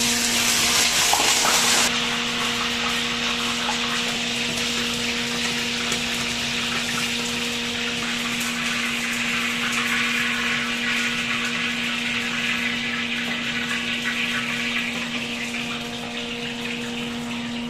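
Slab of pork belly frying in hot oil in a wok: a loud sizzle, strongest in the first two seconds, settling to a steady hiss that eases off near the end. A steady low hum runs underneath.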